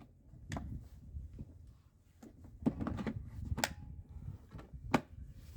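A handful of sharp clicks and knocks against a low, quiet room background, the loudest near the end.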